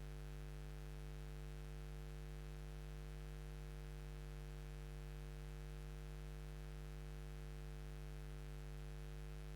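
Steady electrical mains hum with a faint hiss, unchanging throughout; no distinct motor or print-head sounds stand out.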